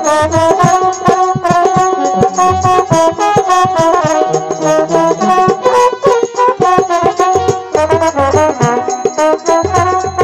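Music: a lively melody in steady stepping notes over a fast, even beat.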